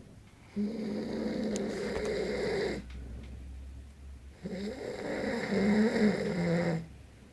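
A man snoring loudly: two long snores, each a couple of seconds, the first starting about half a second in and the second about four seconds in.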